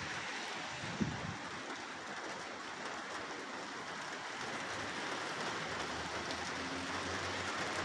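Steady rain falling, an even hiss, with a brief low thump about a second in.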